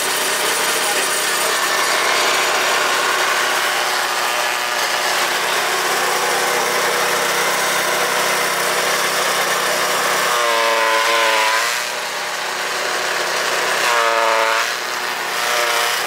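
Chaff cutter running on its 170F single-cylinder air-cooled petrol engine, chopping dry straw as it is fed into the hopper: a loud, steady engine note under a dense rushing, crackling din. About ten and fourteen seconds in, a brief wavering pitched tone rises over it.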